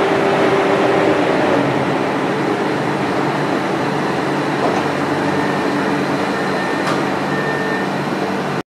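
Double-deck TER electric train standing at the platform, its ventilation and auxiliary equipment humming steadily. A single brief click sounds about seven seconds in.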